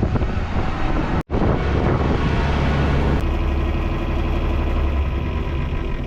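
Heavy engine running steadily, with wind noise on the microphone. The sound drops out briefly about a second in, and from about three seconds in the engine hum turns steadier and more even in pitch.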